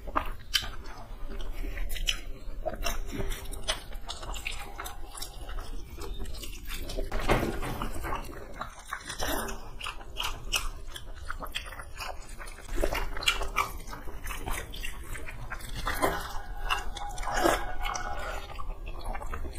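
Close-up chewing and biting of rice and boiled egg by two people eating by hand, with many soft clicks and smacks from mouths and from fingers mixing rice.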